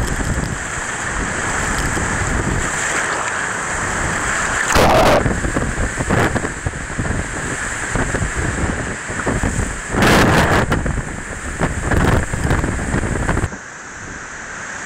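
Hurricane-force wind buffeting the microphone over the rushing and breaking of storm-surge water across a flooded street, with driving rain. Two loud gusts about five and ten seconds in, and the roar drops suddenly near the end.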